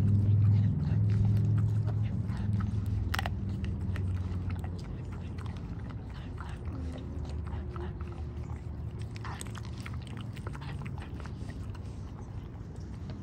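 French Bulldog chewing and gnawing raw chicken, with irregular wet clicks and crunches of teeth on meat and bone; one sharper crunch about three seconds in. A low hum is loudest over the first few seconds and then fades.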